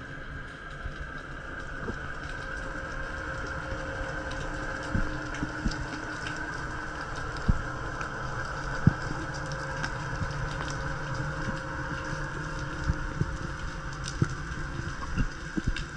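Underwater sound heard through a camera's waterproof housing: a steady hum with scattered sharp clicks and knocks, the loudest about seven and a half and nine seconds in.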